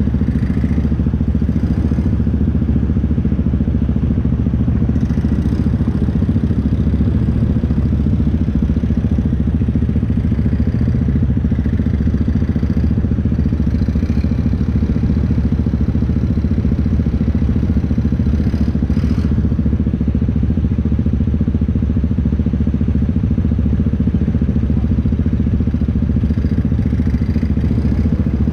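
ATV engine running loudly and steadily, holding an even speed with no big revs.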